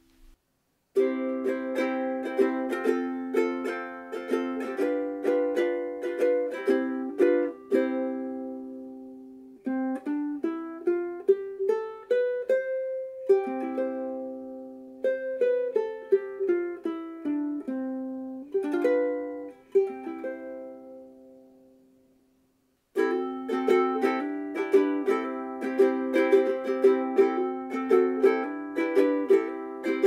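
Famous FS-1G soprano ukulele, laminated mahogany with fluorocarbon strings, played unplugged. It starts with strummed chords, moves to a picked single-note melody in the middle that rings out and fades, then goes back to steady rhythmic strumming near the end.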